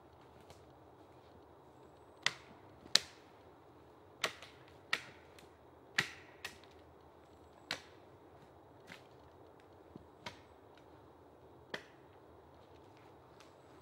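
Dry dead wood cracking and snapping, about ten sharp, irregular snaps a second or so apart, over a steady faint hiss.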